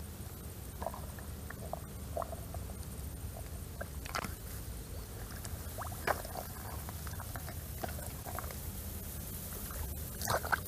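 Scattered wet squelches and small splashes as a hand rummages in a muddy, water-filled eel hole, with a few sharper splashes about four, six and ten seconds in, over a steady low rumble.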